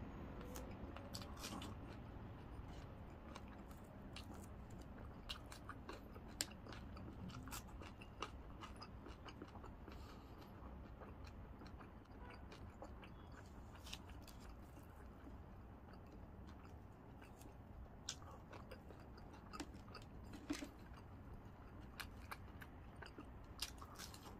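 Close-miked chewing and crunching of crispy fried food, with irregular sharp crackles and mouth clicks scattered through, over a faint steady low hum.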